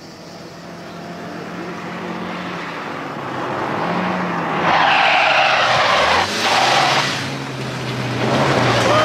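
A small car's engine grows louder as it speeds up, then its tyres skid for about two seconds midway, with a brief break in the skid. The braking ends in a bump that is blamed on the brakes.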